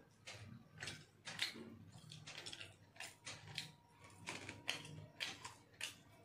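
A man chewing and smacking his lips while eating rice by hand, heard as a string of short irregular clicks, a few each second.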